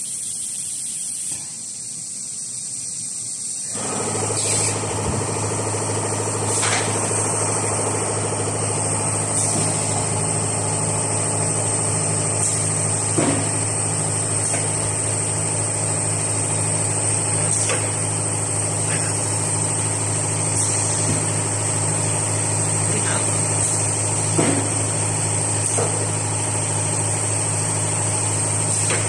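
CNC router running. A steady machine hum comes on about four seconds in and holds over a constant high whine, with a few short knocks along the way.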